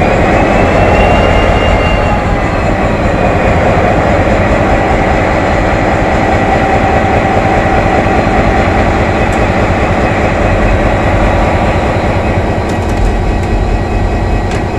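KiwiRail DFB-class diesel-electric locomotive engine running loudly just after starting, heard close up at its open engine-room doors. A high whine rises to a peak about a second in, then fades over the next few seconds. Near the end come a few sharp metallic clicks as the engine-room door is shut and latched.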